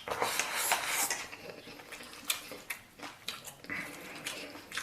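Utensils clicking and scraping against a bowl, with mouth sounds of eating, as a man takes big mouthfuls of braised beef over rice. The clicks come irregularly, several a second at times.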